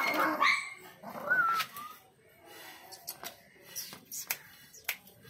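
Miniature Pinscher puppy whining: high, wavering yelps in the first two seconds, then a run of light clicks and taps.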